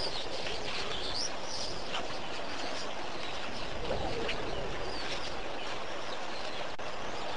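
Wild birds chirping, a few short rising calls, over a steady background hiss of outdoor ambience.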